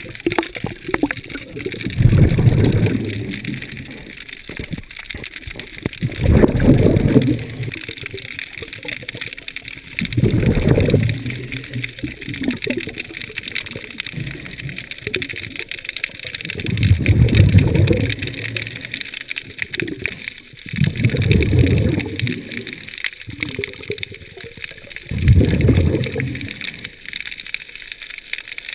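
A scuba diver's exhaled breath bubbling out of the regulator underwater, six breaths out about four seconds apart, each a gurgling burst of bubbles lasting a second or so, with a steady faint hiss between them.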